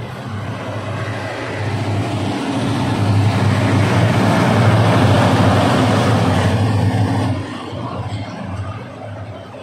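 Diesel locomotive hauling passenger coaches past on an elevated track: a steady low engine drone that builds and then drops off sharply about seven seconds in as the locomotive goes by, leaving the quieter rumble of the coaches.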